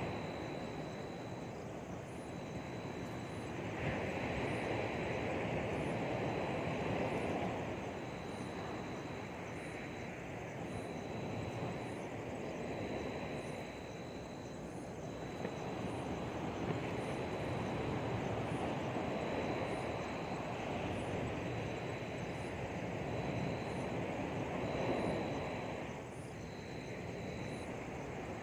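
Outdoor ambience: a steady rushing noise that swells and eases every few seconds, with a faint high ticking about once a second.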